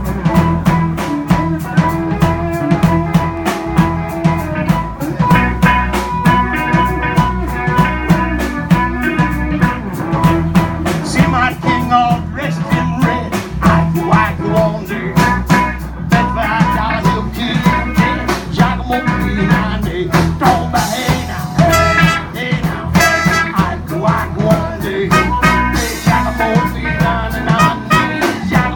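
A live blues band playing with a drum kit keeping a steady beat. A hollow-body electric guitar plays at first, then a harmonica played into a vocal microphone comes to the front.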